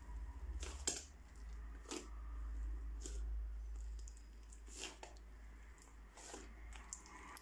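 Crunchy slime packed with small balls being pressed and kneaded by hand: squishing with irregular crisp crackles and pops, about one sharper crunch every second or so.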